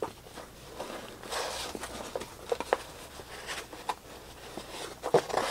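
Trading cards being riffled and pulled from a cardboard box: a soft papery rustle with scattered light ticks of card edges.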